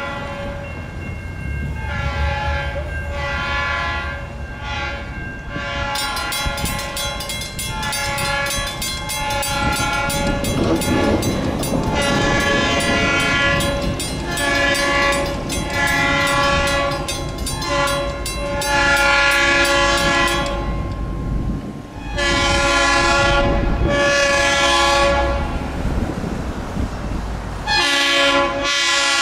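Diesel locomotive horn, a Leslie RS3L, sounding a series of long and short blasts over the low rumble of the moving train.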